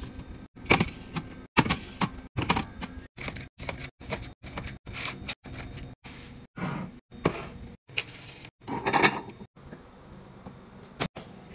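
Restocking sounds in quick cuts: aluminium cans and cardboard boxes knocked and slid onto fridge and pantry shelves. A string of short knocks and clatters, with abrupt breaks between clips.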